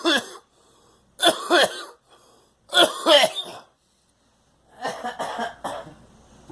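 A person coughing hard in four bouts about a second and a half apart, each bout two or three quick coughs, the last one quieter. It is a choking cough from coffee that went down the wrong way.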